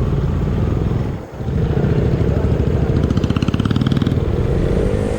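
KTM 390 Duke's single-cylinder engine running under way as the motorcycle is ridden. The engine note dips briefly about a second in, then picks up again and runs on steadily.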